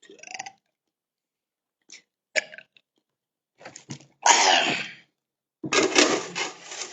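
A man coughing in several bursts: a few short coughs, a loud one about four seconds in, and a run of coughs near the end.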